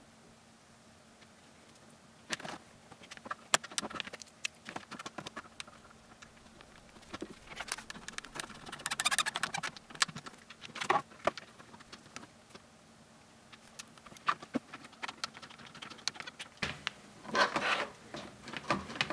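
Hard 3D-printed plastic suspension parts being handled and fitted together by hand: scattered clicks and taps, with a longer rattling scrape about halfway through and another burst of rattles near the end.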